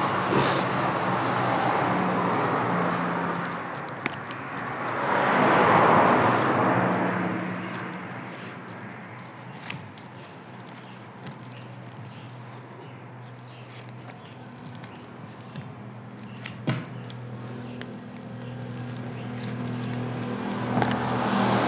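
A car passing by outside, its noise swelling to a peak about six seconds in and fading away, with another vehicle approaching near the end. A few light clicks and rustles of straw being woven by hand.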